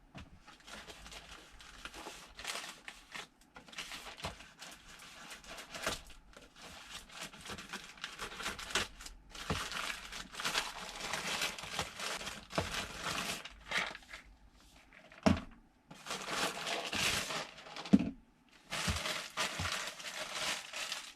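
A pack of supplement tablets being opened and handled: irregular crinkling and tearing of the packaging, with a few sharp knocks, the loudest about 15 and 18 seconds in.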